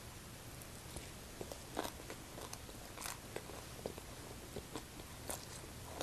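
A person biting and chewing a mouthful of green papaya salad (som tam), with scattered crisp crunches, the loudest about two and three seconds in.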